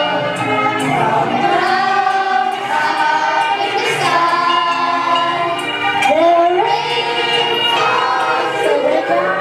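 Children's choir singing together, holding and gliding between sung notes.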